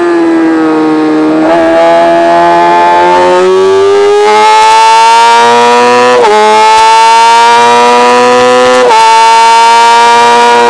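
Sport motorcycle engine under hard acceleration, heard from a camera mounted on the bike: a loud pitched note that first sinks, then climbs steadily, broken twice by upshifts about six and nine seconds in, where the pitch drops and climbs again.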